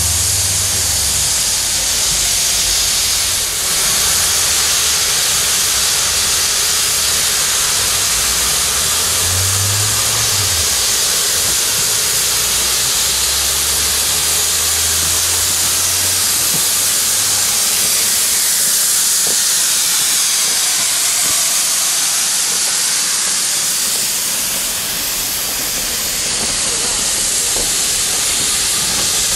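1909 steam locomotive venting steam in a loud, steady hiss from its open cylinder drain cocks as it moves off.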